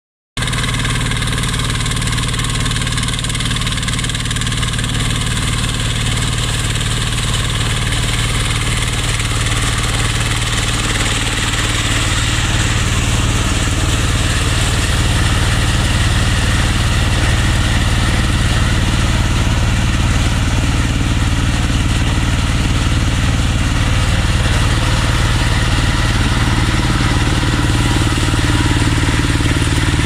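Walk-behind mini combine harvester running steadily as it cuts and threshes rice: a small engine's steady note under the continuous rush of the machinery, growing a little louder partway through.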